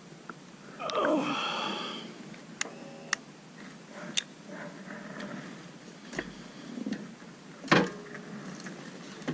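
A tired, falling groan from the rider, then scattered clicks, knocks and rustles as a motorcycle is walked along a dirt trail. The loudest knock comes near the end.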